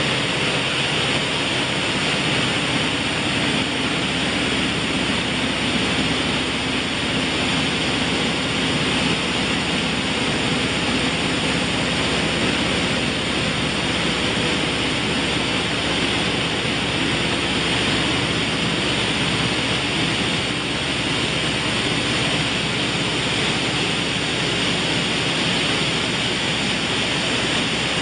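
Buckwheat grading machine running: grain rattling and sliding over its vibrating sieve screens makes a steady rushing noise, with a low machine hum underneath.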